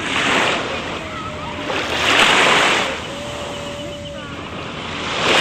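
Waves breaking on a beach: three surges of surf hiss, one at the start, one about two seconds in and one near the end, over a steady wash of sea noise.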